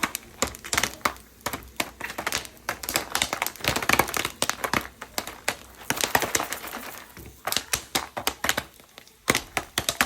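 Popcorn popping in a pot on the stove: many rapid, irregular pops and crackles, thinning briefly near the end.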